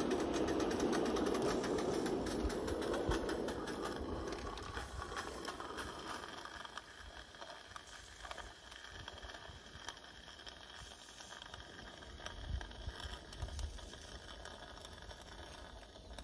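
Live-steam model locomotive and its train of coaches running along garden track, with many wheel clicks and a rattle. The sound fades over the first several seconds.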